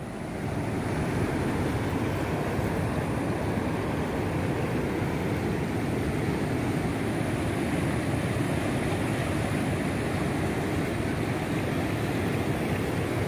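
Steady rushing of a river in flood, its fast, muddy water swollen by heavy rain. The noise grows a little louder about half a second in and then holds level.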